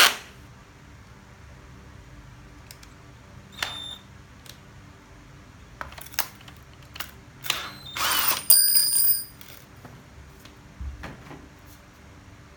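Scattered clicks, clatter and short ratcheting rasps of a cordless drill's keyless chuck and drill bits being handled while a concrete bit is swapped for a wood bit. The loudest rasp, about a second long, comes a little after 8 seconds in.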